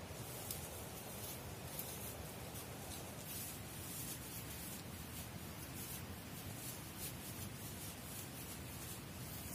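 Faint rustling and crackling of dry leaves and grass being handled and cleared by hand, with scattered small crackles throughout.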